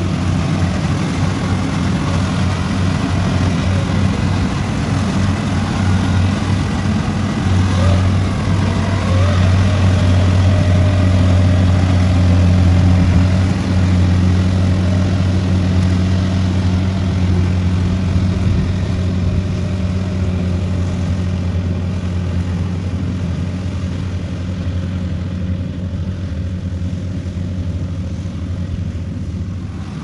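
Kubota rice combine harvester's diesel engine and threshing gear running steadily while cutting rice, a low even hum that is loudest near the middle and grows fainter toward the end.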